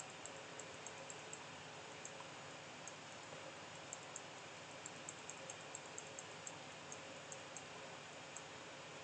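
Faint, irregular clicking of a computer mouse, sometimes several clicks a second, over a steady hiss.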